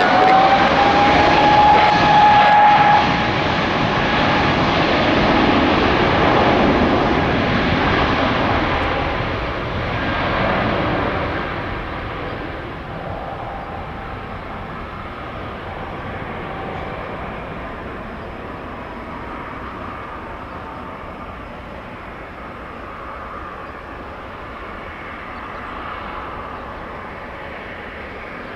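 Airbus A320neo's Pratt & Whitney geared turbofan engines at takeoff power. A loud jet roar with a steady whine for the first three seconds fades gradually over about ten seconds as the aircraft climbs away, leaving a faint distant rumble.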